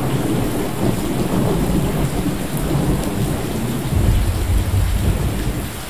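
Heavy rain pouring steadily onto corrugated metal roofing, with a deep rumble of thunder swelling about four seconds in.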